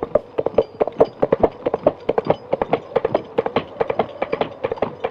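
Two coconut half-shells knocked together in a quick galloping clip-clop, standing in for a horse's hooves.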